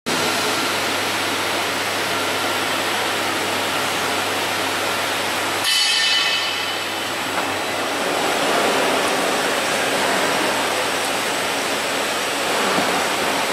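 Reignmac RMD6025M double end tenoner running, a steady rushing machine noise. About six seconds in the sound shifts, with a brief sharper hiss, then the steady rushing carries on.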